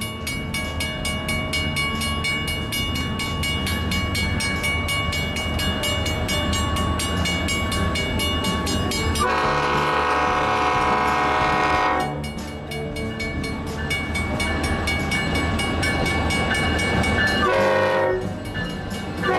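Grade-crossing bell dinging steadily over the rumble of an approaching F40PH diesel-electric locomotive, which sounds its air horn in a long blast of about three seconds some nine seconds in and again near the end.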